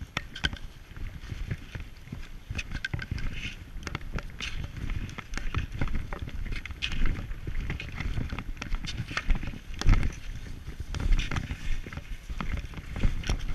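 Footsteps in stiff ski boots crunching irregularly through snow and slush, over a low rumble on the microphone.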